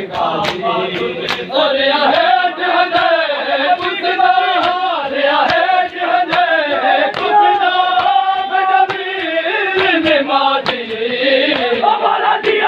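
Crowd of men chanting a noha (Shia mourning lament) in unison, with sharp hand slaps of matam on bare chests beating out the rhythm about twice a second.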